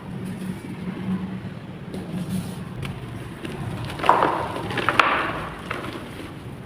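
Chalk clay block being crushed and crumbling, a low grinding rumble that rises into a louder crunch with two sharp cracks about a second apart in the second half.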